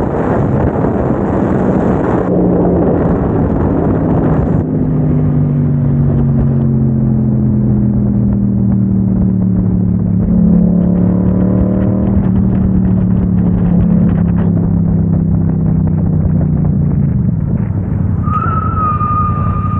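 Wind rushing over the microphone of a riding motorcycle, changing abruptly twice in the first few seconds. Then the Yamaha motorcycle's engine is heard running steadily under way, its pitch slowly falling, with a brief rise in revs about halfway through. A thin, steady high whine comes in near the end.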